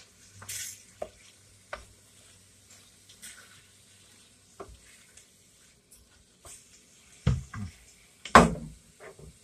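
A spoon stirring penne through tomato sauce in a baking dish: soft wet scraping and small clicks, with a few louder knocks against the dish in the last two seconds.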